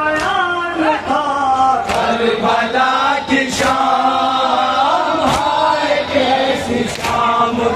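Men chanting a noha, the Muharram lament, together in unison. Sharp hand-on-chest slaps of matam cut through the chanting about every second and a half, four times.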